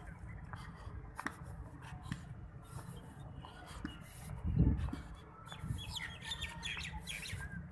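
Outdoor park ambience: a steady low rumble on the microphone, a dull low thump about halfway through, and faint chirping bird calls near the end.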